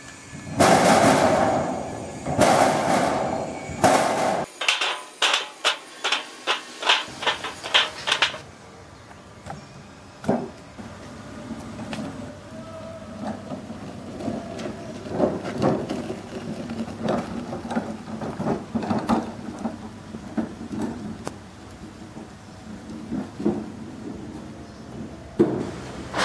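Coconuts in the husk dropped into the metal tray of a two-wheeled pushcart, loud thuds at first, then a quick run of sharper knocks about three a second. After that, quieter scattered clicks and knocks as the loaded cart is pushed over a dirt track.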